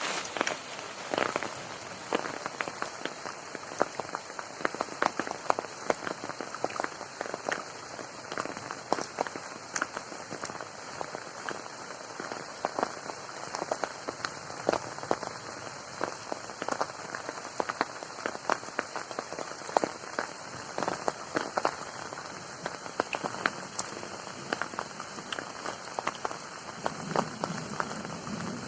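Rain falling on a garden pond: a steady hiss of rainfall with many separate drops striking close by.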